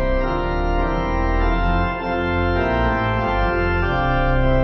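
Organ music: held chords over a steady bass, the chords changing every second or so.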